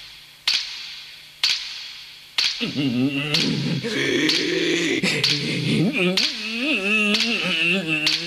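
Sharp percussive hits about once a second, joined about two and a half seconds in by a low, humming, voice-like tone whose pitch wobbles up and down more and more widely toward the end.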